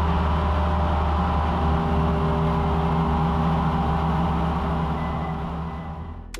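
CNC mill cutting with an end mill under flood coolant: steady spindle and cutting noise with the hiss of coolant spray, several steady tones over a low hum, easing slightly near the end.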